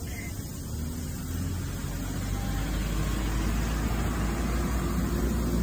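Low engine rumble of a nearby motor vehicle, growing steadily louder.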